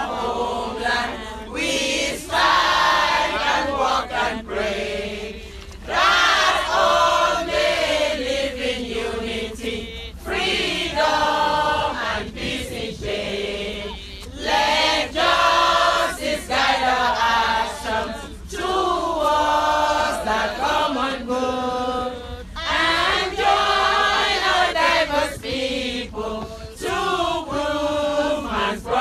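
A group of men and women singing a chant together, in repeated sung phrases with short breaks between them.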